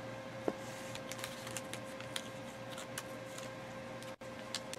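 Faint light clicks and rustles of trading cards being handled, over a steady faint hum.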